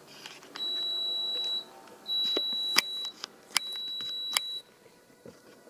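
Stepper motors of a home-made CNC router whining at a steady high pitch as an axis moves in three runs of about a second each, with short pauses and a few sharp clicks between them.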